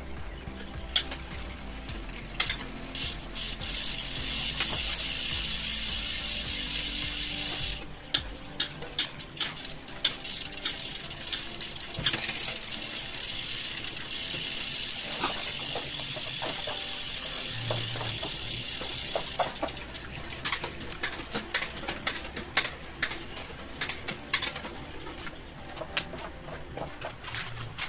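Bicycle drivetrain turned by hand in a workstand: the chain running over a 9-speed cassette and 1x chainring, with the rear hub's freewheel ratchet buzzing steadily in two long stretches and ticking in quick sharp clicks near the end.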